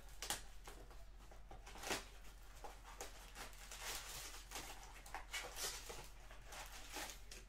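Crinkling and rustling of plastic shrink wrap and foil trading-card packs being handled, in irregular short crackles, over a faint steady low hum.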